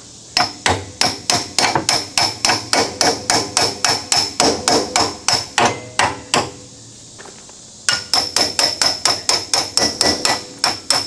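Steel hammer striking metal in quick, even blows, about four a second, each with a short metallic ring. It works a part into the ATV trailing arm's frame mount. The hammering stops for about a second just past the middle, then starts again.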